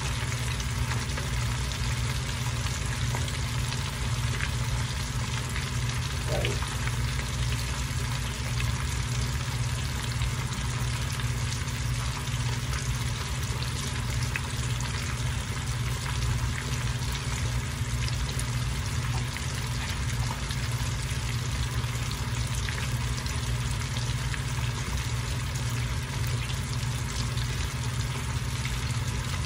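Pork ribs frying in hot oil: a steady sizzle with a few faint pops, over a steady low hum.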